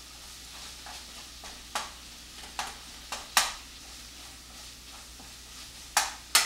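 Ground Italian sausage sizzling as it browns in a frying pan, with a wooden spatula scraping and knocking against the pan in short strokes. The loudest knocks come near the end.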